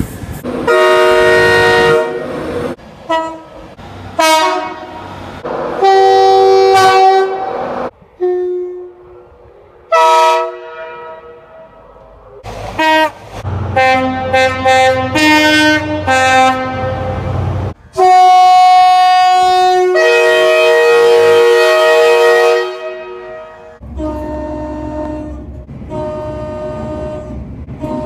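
British train horns sounding in a quick series of separate blasts, short toots and long held notes, many stepping between two tones, cut one after another. A lower rumble of a passing train runs under the last few blasts.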